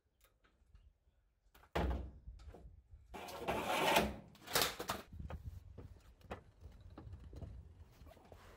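Aluminium ladder falling over: a sharp knock about two seconds in, then a louder clattering crash from about three to five seconds in, with a few smaller knocks after.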